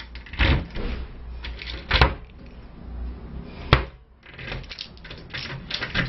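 A key rattles into the small cam locks of wooden hostel lockers and is turned, with two sharp clicks about two seconds and nearly four seconds in. One key is opening other lockers' locks.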